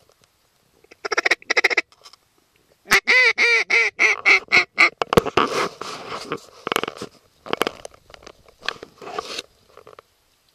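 Loud duck quacking: a short burst about a second in, then a rapid run of several quacks a second, followed by scattered quacks until near the end.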